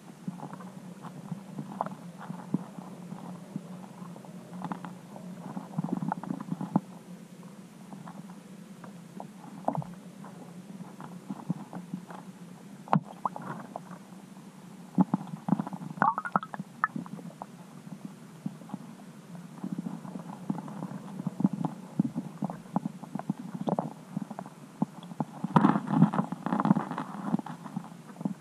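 Muffled underwater sound picked up by a submerged camera under the ice: a low steady hum with irregular soft knocks and clicks, one sharper click about halfway through, and a busier run of knocks near the end.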